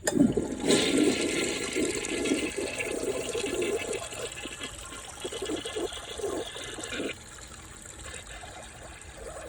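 A 1968 Rockport toilet flushing with a dishcloth in the bowl: a loud rush of water starting right away, dropping off sharply about seven seconds in to the quieter steady hiss of the tank refilling.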